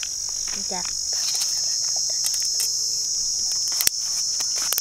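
A steady, high-pitched insect chorus drones throughout. Scattered small clicks and snaps come from hands peeling and cutting a giant freshwater prawn against a boti blade, with one sharper click about four seconds in.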